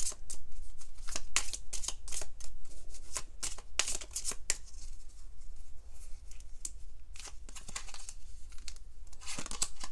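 Deck of tarot cards being shuffled overhand by hand: a quick run of card slaps and clicks, thinning out in the middle and picking up again near the end.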